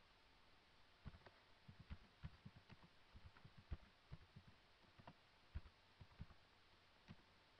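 Computer keyboard being typed on: an irregular run of faint key clicks that starts about a second in and stops shortly before the end.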